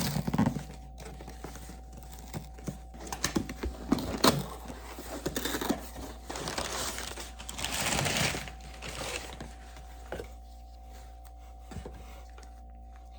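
Small handling sounds: scattered clicks, taps and rustling, with a longer rustle about seven to nine seconds in, over a faint steady hum.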